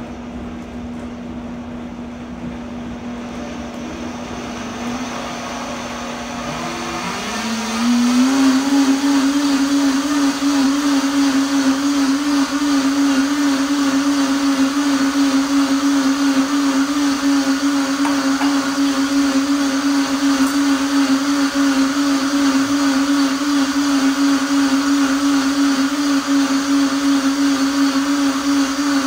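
Countertop blender puréeing hot sweet potato soup. The motor runs at a lower speed, then about seven seconds in its pitch rises and it gets louder, and it keeps running steadily at high speed.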